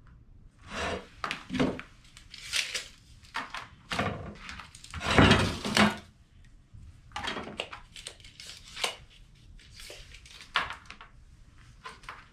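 A metal T-square straight edge scraping and knocking as it is slid and repositioned on a wooden board, with a marker rubbing along it to draw a line. The sounds come as irregular short scrapes and rubs, loudest about four to six seconds in.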